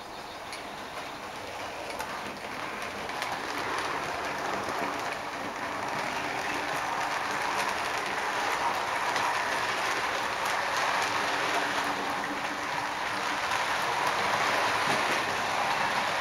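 Model railway locomotive and coaches running along the track: a steady rattling hiss of small metal wheels on rail with fine clicks, growing louder over the first several seconds.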